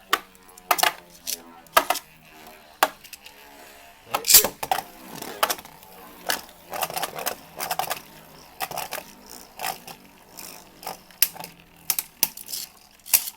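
Two Beyblade Burst spinning tops battling in a plastic stadium: a faint whir in the first couple of seconds, and irregular sharp plastic clacks throughout as the tops strike each other and the stadium walls.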